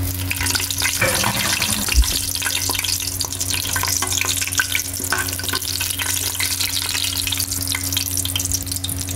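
Whole spices (dried red chillies, bay leaf, cardamoms, cinnamon, star anise, cumin, cloves) sizzling and crackling in hot oil in a pressure cooker while a perforated metal spoon stirs them; this is the tempering of whole garam masala in oil. A steady low hum runs underneath, and there is a single knock about two seconds in.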